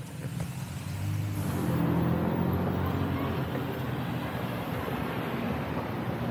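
Road noise on an electric unicycle ride: a steady low vehicle hum with a rush of air over it, swelling about a second in and then holding steady.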